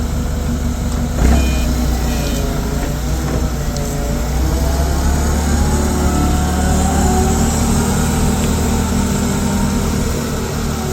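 Disc grinder running and cutting into welded steel, its pitch wavering up and down as the disc takes the load, with a hissing grind in the middle and a single knock about a second in.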